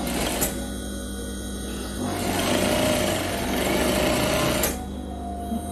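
Industrial sewing machine stitching a seam in one run of about two and a half seconds, starting about two seconds in and stopping suddenly near the end, with a single click shortly after the start.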